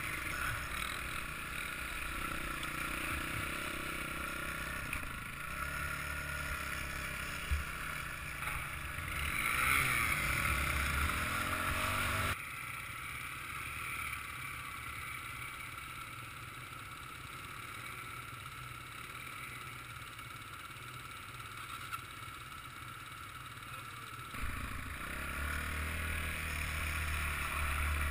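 Off-road motorbike engine running and revving while riding a muddy track, heard from the rider's helmet-mounted GoPro. The sound drops suddenly to a quieter stretch about twelve seconds in and comes back up near the end.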